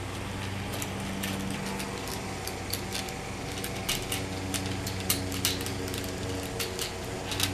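Small irregular clicks and ticks of a bead chain being fed through the hole of a plastic vertical-blind end control, a few clicks a second, over a steady low hum.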